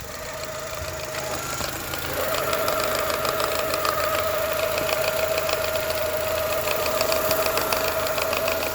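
The 2002 Mini Cooper R50's 1.6-litre four-cylinder is running with the clutch pedal pressed. It gives a steady whine with a fast metallic rattle that grows louder about two seconds in. The owner blames a fault at the flywheel for the noise, which comes every time the clutch is pushed.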